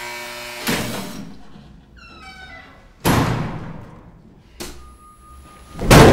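Heavy slams and thuds over dramatic music, several of them a second or more apart, with the loudest hit near the end. A steady high hum comes in about two-thirds of the way through.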